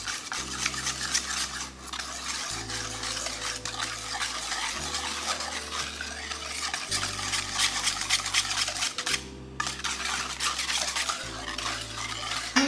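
Cake batter being stirred in a mixing bowl: a utensil scrapes and clinks against the bowl in quick continuous strokes as yogurt is worked into the batter, with a short pause about nine seconds in.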